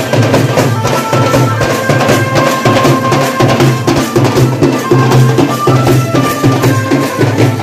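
A street band of snare and bass drums beaten with sticks in a fast, even rhythm, with a melody of held high notes over the drums.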